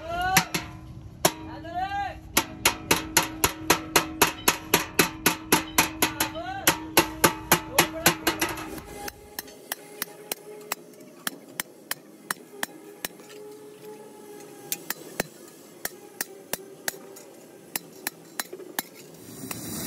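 Hand hammer striking the steel end cap of a truck exhaust muffler, fast regular blows about three a second, for roughly the first nine seconds. Then lighter, slower, irregular taps of a hammer on a steel punch piercing a sheet-metal baffle disc laid on a steel block.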